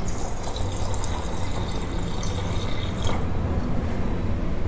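Thin cooked-dal water poured in a stream from a steel vessel into a pot of boiling rasam, a steady splashing pour into the bubbling liquid.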